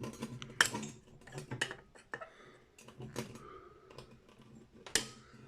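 Long-nose pliers clicking and knocking against a seized metal fitting as they try to get a turn on it: a handful of small, irregular metallic taps.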